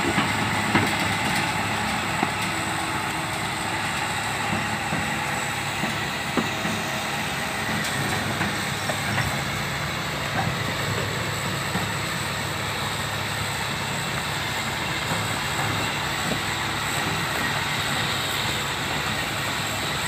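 Old Hitachi hydraulic crawler excavator travelling over dirt: its diesel engine runs steadily while the steel crawler tracks give off scattered clanks and knocks.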